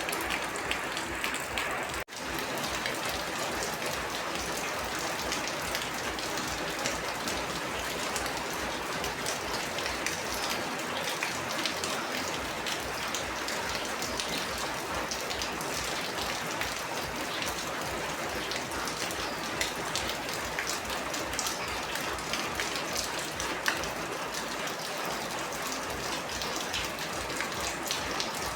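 Rain falling steadily, a dense, even patter of many small drops. The sound cuts out for an instant about two seconds in, then comes straight back.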